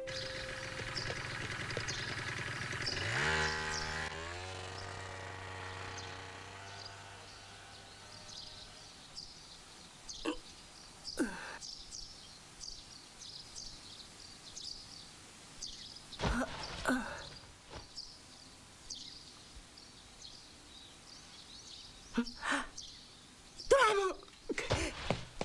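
Soft music fades out over the first few seconds. Then small birds chirp steadily in a quiet morning ambience, broken by a few short breaths or sounds from a boy. Near the end the boy calls out.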